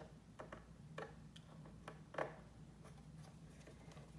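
A few light, separate clicks and taps of small screws and a screwdriver on a laptop's plastic case, the loudest about two seconds in, over a faint low steady hum.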